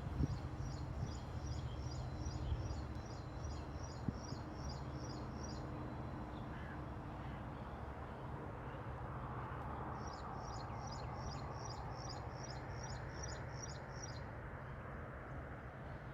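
A small bird repeating one high note about three times a second, in two runs of four to five seconds each, over a steady low background rumble.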